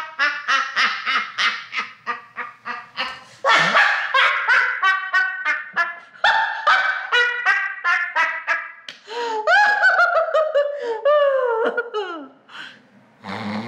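Hard laughter in women's voices, in long runs of quick 'ha' pulses, several a second. Near the end the laughs slide down in pitch before trailing off.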